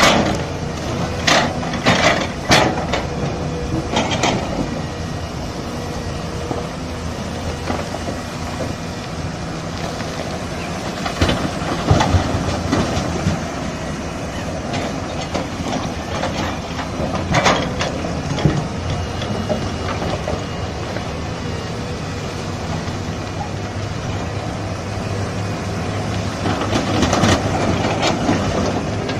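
Heavy construction machinery running with a steady engine drone, with several sharp clanks in the first few seconds and a couple more later on.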